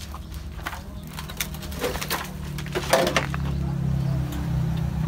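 A few scattered cracks and knocks of broken wooden framing and corrugated metal sheeting as the wreckage is stepped through. Under them runs a steady low engine hum that grows louder near the end.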